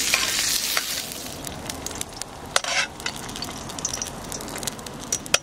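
Carrots and snap peas sizzling in plenty of oil in a skillet over a wood campfire, the heat too high. The sizzle is loud at first and dies down after about a second, with scattered sharp clicks and crackles.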